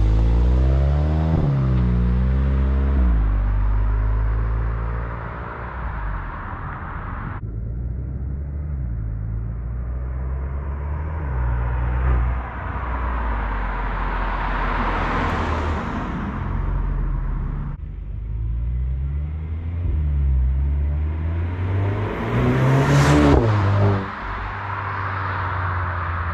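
Stock exhaust of a Mk8 Volkswagen GTI's turbocharged 2.0-litre four-cylinder as the car accelerates away from the roadside, its note rising through the revs and dropping with each gear change. It is heard over several pulls.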